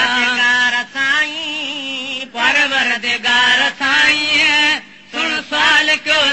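Sindhi molood devotional chant: a male voice sings long, wavering phrases over a steady held drone note.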